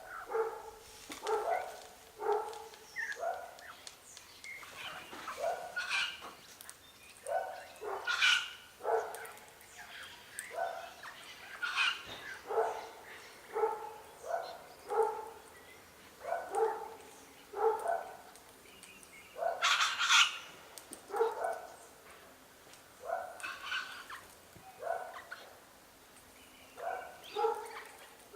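Short, harsh animal calls repeated in small groups about every second, with a few louder, shriller calls among them.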